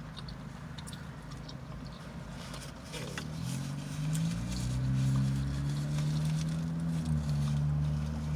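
A nearby vehicle's engine, a low drone that rises about three seconds in and then holds loud and steady, heard from inside a parked car. Small clicks and crackles sound over it.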